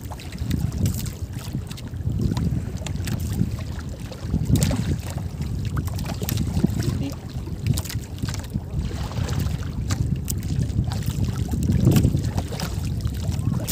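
Wind buffeting the microphone and water slapping against the hull of a small outrigger boat drifting at sea, with a few light knocks.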